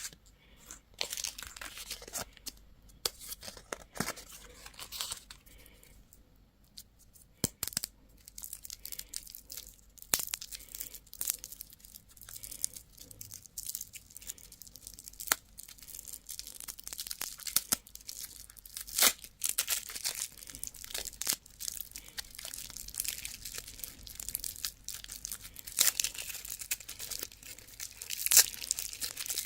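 Crinkly candy and toy wrappers being torn open and crumpled close to the microphone: a dense, irregular crackle of sharp snaps. It eases off briefly about a quarter of the way in and grows busier near the end.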